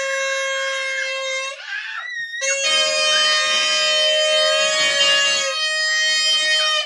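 A toy party horn blown in long, steady, single-pitch blasts. One blast stops about a second and a half in, and another starts a second later and is held for about four seconds.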